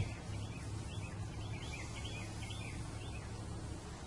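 Birds chirping over and over, a quick run of short chirps, over a steady low background hum.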